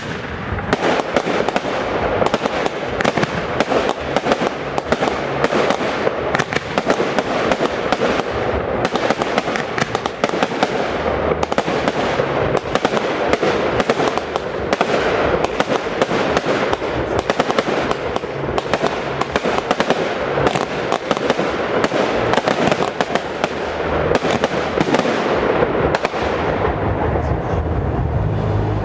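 Fireworks display going off in a dense, unbroken barrage of bangs and crackles, many a second, thinning slightly near the end.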